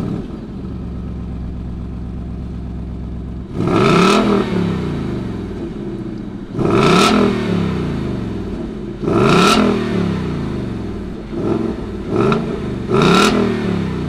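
A 2020 Ford Mustang GT California Special's 5.0-litre Coyote V8 idles steadily just after start-up, then is revved six times through its exhaust, each rev rising and falling back to idle. The first three come about three seconds apart, the last three in quicker succession.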